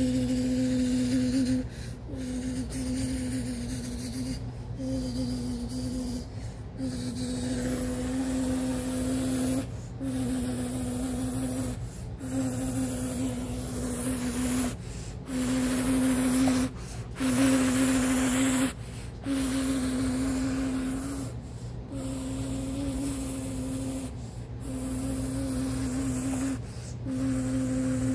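A person humming in long, nearly level low notes broken by short pauses, over a steady low electrical hum.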